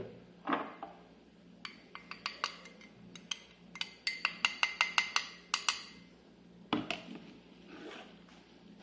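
A spoon knocking against a cup to tip grated garlic and ginger paste into it. A few scattered taps come first, then a quick run of about ten ringing clinks, five or six a second, and one louder knock near the end.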